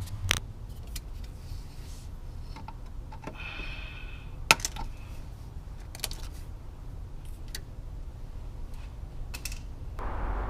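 Scattered light clicks and knocks of tools and parts in a small garage over a low hum. In the last half second the Giulia Quadrifoglio's engine begins to crank over for a cold start.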